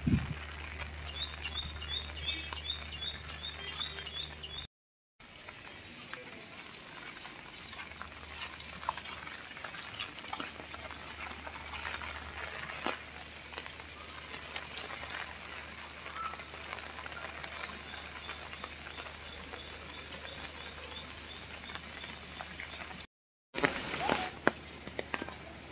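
Steady rain falling and pattering, with a bird chirping in short quick runs now and then.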